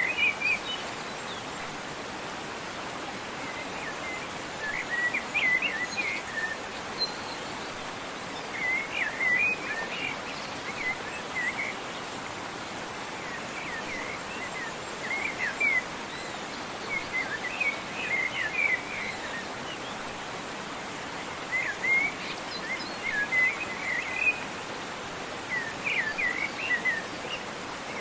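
Small birds chirping in short clusters of quick, high notes every few seconds over the steady rush of a waterfall.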